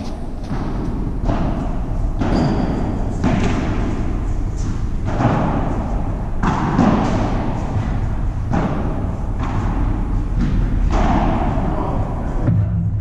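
Padel rally: the ball struck by paddles and bouncing off the court and glass walls, a string of irregular thuds about one a second, each trailing off in echo, over a steady low hum.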